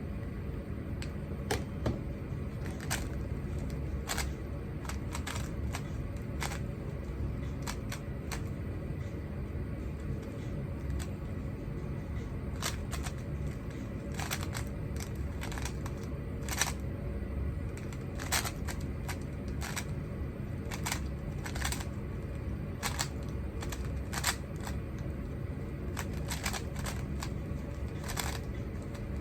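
Plastic Rubik's cube being turned by hand during a speedsolve: quick, irregular clicks of the layers snapping round, over a steady low hum.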